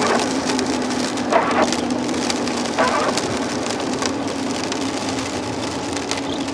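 Heavy rain falling on a car's roof and windshield, heard from inside the cabin as a dense hiss of fine drop ticks over a steady low engine hum.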